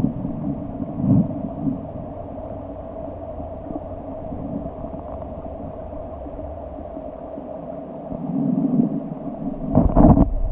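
Mountain stream heard through a camera held underwater: a muffled, steady low rumble of flowing water. It swells about eight seconds in, and a loud sudden burst follows about a second later.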